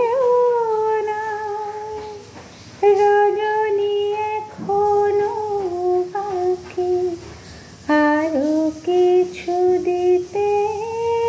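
A woman singing a slow melody, drawing out long held notes of a second or more with small slides between them.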